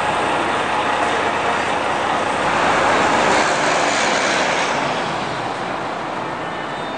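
City street traffic: a steady rush of road noise that swells about three seconds in as a bus passes close by, then eases off.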